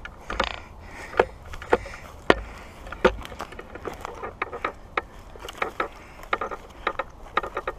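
Footsteps crunching through dry leaves, grass and twigs on a woodland trail: short crackles and snaps at a walking pace, with a few heavier thuds in the first half.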